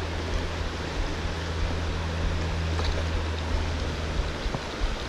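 River current rushing and lapping at the water's surface close to the microphone, an even steady wash, with a low steady hum underneath that stops about four and a half seconds in.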